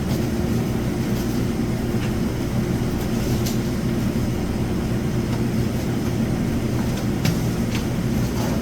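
Steady low mechanical hum with a few faint, sharp clicks scattered through it.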